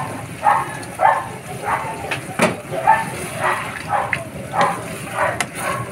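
A dog barking over and over, a short bark about every half second to two-thirds of a second, with a couple of sharp knocks of the wooden spatula against the wok.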